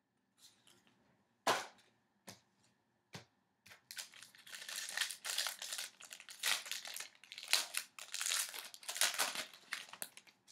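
Hockey card pack wrapper crinkling and tearing as the pack is opened. There is a sharp snap about a second and a half in, and the crinkling is densest in the second half.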